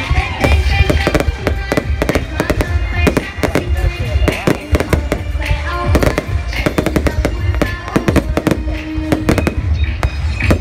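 Fireworks display going off: a rapid, continuous string of bangs and crackles over a low rumble, with music playing underneath.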